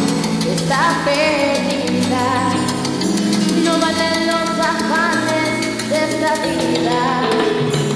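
A girl singing into a handheld microphone over a backing track with drums and bass, holding wavering notes.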